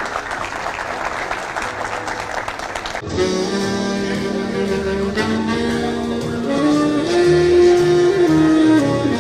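Audience applause for about three seconds, then a tenor saxophone starts playing a slow melody of long held notes over backing music with a bass line.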